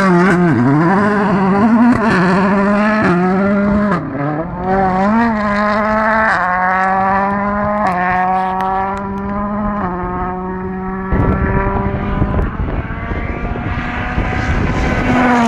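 Volkswagen Polo WRC rally car's 1.6-litre turbocharged four-cylinder engine pulling hard, its pitch climbing and then dropping with each quick gearshift every second or two. From about eleven seconds in, a loud rush of noise covers the engine, and the revs drop near the end.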